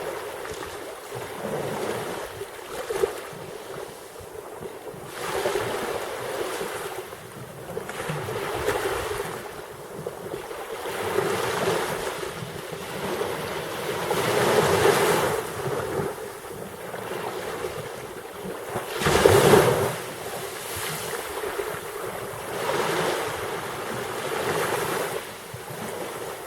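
Black Sea waves washing in and breaking, rising and falling in surges every few seconds. The biggest wave comes about three-quarters of the way through.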